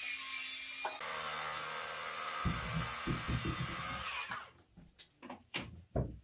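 A high-pitched power tool running during woodworking, stopping suddenly about four seconds in. Several sharp wooden knocks follow it.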